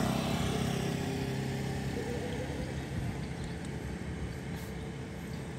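A motor vehicle engine running with a steady low hum, slowly growing quieter.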